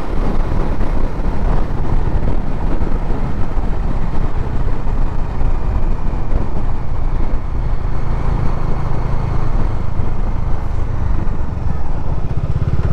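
A Bajaj Dominar 400 motorcycle being ridden on the road, its single-cylinder engine running steadily under a constant rush of wind noise on the microphone.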